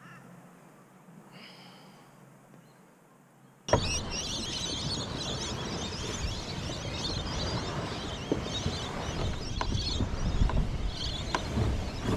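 Faint until about four seconds in, then wind buffeting the microphone at the shore: an unsteady low rumble under a dense outdoor hiss, with a few sharp knocks.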